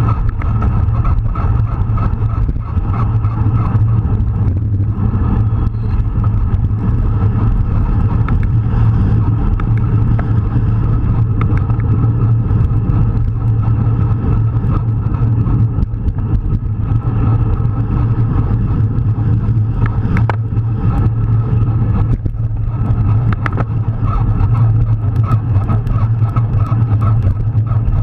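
Steady wind rush and tyre noise on the microphone of a camera mounted on a road racing bicycle at speed, with a constant low drone and a few light clicks.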